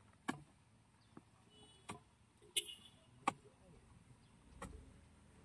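A steel bar being jabbed into stony ground, giving a handful of sharp knocks at irregular intervals of about a second. A short low rumble comes near the end.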